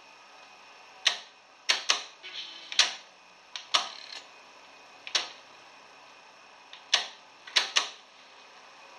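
Dual C844 cassette deck's transport keys and mechanism clicking as they are operated: about ten sharp clicks, several in quick pairs.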